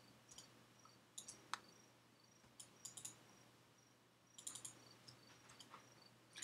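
Faint computer mouse clicks in small quick clusters about once a second, with one sharper click about a second and a half in, over near-silent room tone.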